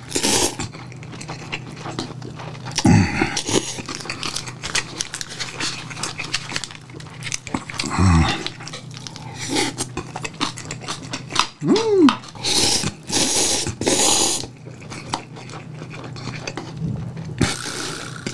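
A person slurping instant cup noodles (Shin Ramyun) and chewing, in repeated short, noisy slurps. A few short vocal noises come between the slurps.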